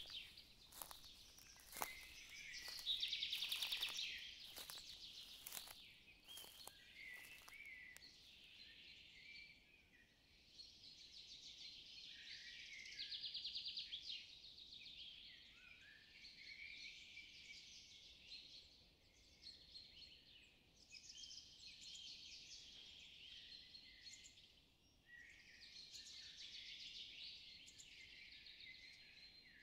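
Faint outdoor chorus of small birds chirping and twittering. Footsteps on dry fallen leaves crunch as sharp clicks during the first several seconds, then stop.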